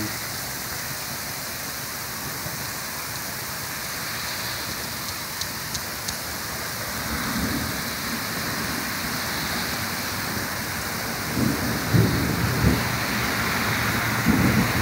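Freezing rain and ice pellets coming down steadily with an even hiss, with a few light ticks about five seconds in. Thunder rumbles in from about seven seconds, loudest around twelve seconds in and again near the end, following a lightning flash.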